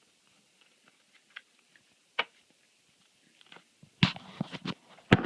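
Trading cards being handled and sorted on a table: scattered light clicks and taps, then a flurry of louder shuffling, rustling and knocks from about four seconds in.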